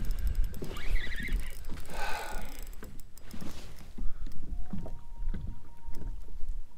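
Water lapping and knocking against a kayak hull in a series of small irregular splashes and taps, over a steady low wind rumble on the microphone.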